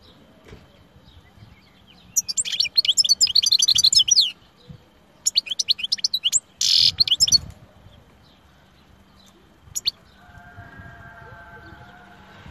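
European goldfinch singing: rapid twittering phrases in three bursts, the first starting about two seconds in and the last ending about halfway through, then a single short note near the end.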